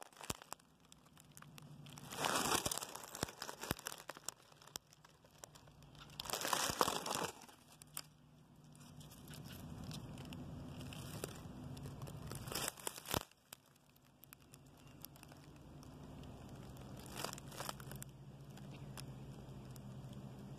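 Dry leaves and grass crunching and crinkling in four short bursts of rustling, with scattered small crackles and a faint low hum between them.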